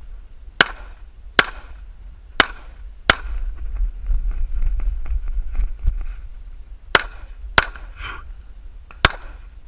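Pistol shots in two strings: four shots about a second apart in the first three seconds, a pause of a few seconds, then four more quick shots near the end.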